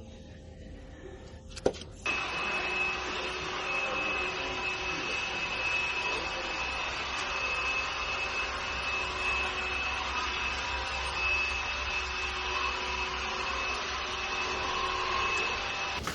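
A small electric motor running at a steady speed with a whine for about fourteen seconds, starting abruptly about two seconds in and cutting off just before the end.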